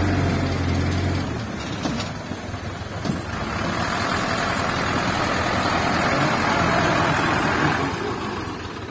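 Diesel engine of a Mitsubishi Canter dump truck running after tipping its load of soil. A steady low hum stops about a second in as the tipper bed comes down, then the engine rises as the truck pulls forward and eases off near the end.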